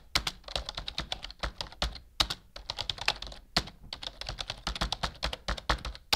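Rapid, irregular keyboard typing clicks, several a second, with short pauses about two seconds and three and a half seconds in: a typing sound effect accompanying text appearing on screen.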